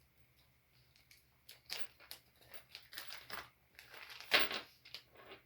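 Small plastic bags of screws crinkling and rustling as they are handled, in short irregular bursts with the loudest rustle about four seconds in.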